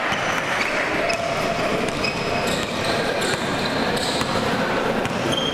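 Live basketball game sounds: a ball bouncing on the court and players' sneakers squeaking, over chatter from people in the gym. The short high squeaks come thickest in the second half.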